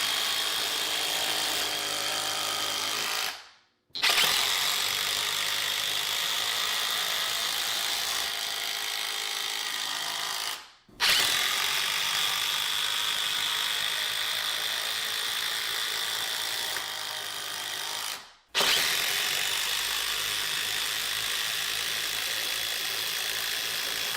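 DeWalt DCF809 cordless impact driver hammering long structural wood screws in under load: several-second runs of steady rattling impacts, broken three times by brief stops.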